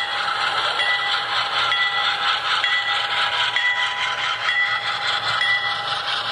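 Model Amtrak diesel locomotive's onboard sound ringing its bell, a short ding about once a second, over a steady engine-and-running noise as it hauls its passenger train past.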